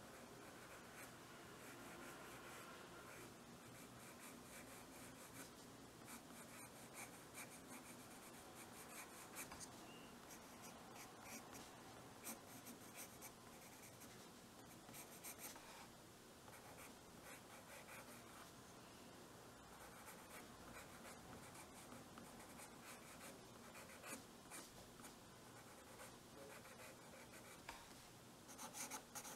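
A 2B graphite pencil scratching faintly on drawing paper in many short, quick shading strokes.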